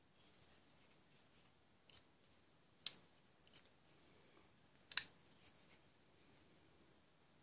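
Böker Magnum folding knife being handled and opened: faint light ticks and rubbing, with two sharp metallic clicks about two seconds apart as the tanto blade is swung open and locks.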